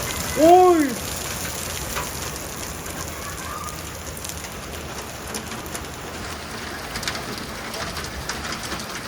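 Hail and rain falling on surfaces: a steady hiss dotted with many sharp ticks of stones striking. About half a second in, a short pitched call rises and falls, the loudest sound.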